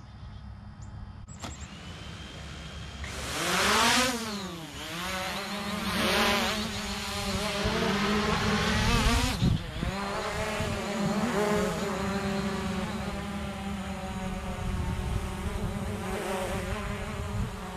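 Hubsan Zino Pro quadcopter's motors spinning up about a second and a half in, then the propeller buzz surging steeply up and back down in pitch as it lifts off around four seconds in, in a takeoff the owner calls a little hairy. It then settles into a steady multi-tone whine while it hovers low, the pitch wavering as it bobs around.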